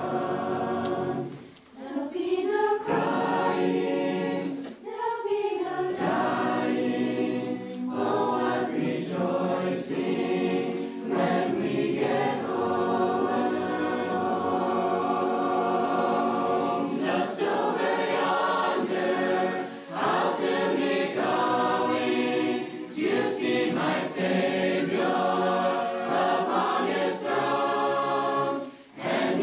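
Mixed choir of young men's and women's voices singing a hymn a cappella, with brief pauses between phrases near the start and at the end.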